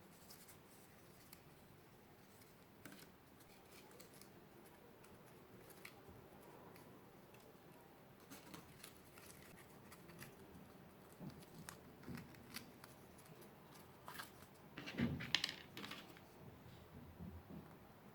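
Faint, scattered clicks and short scrapes of cardboard being cut and handled, with a louder cluster of sharp snips and knocks about fifteen seconds in.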